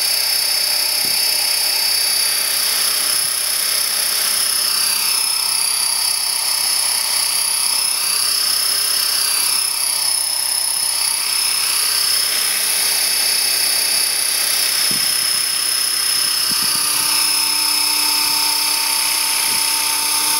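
Align T-Rex 500 electric RC helicopter running, with a steady high whine from its brushless motor and gears over the whoosh of the spinning rotor blades as it lifts off into a hover.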